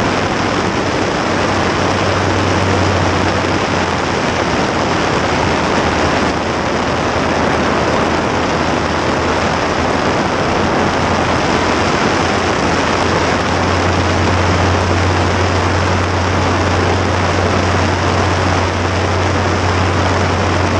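Light propeller aircraft in cruise flight: a steady rush of wind over the wing-mounted camera, with the engine and propeller droning low underneath. The drone swells about a second in, eases after a few seconds, and swells again from about halfway through.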